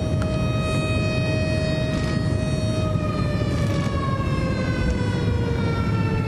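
Siren-like warning tone held at one steady pitch over a heavy low rumble. About three seconds in, the tone begins sliding slowly down in pitch.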